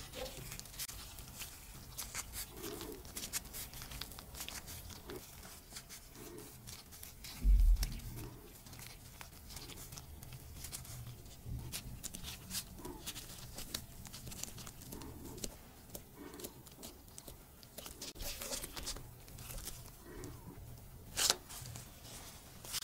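Close-up handling sounds of soft dough being pleated and pinched shut around a shredded-cheese filling by hands in black rubber gloves, with the gloves crinkling and small clicks throughout. A single dull thump about seven seconds in, and a sharp click near the end as the filled dough is pressed flat.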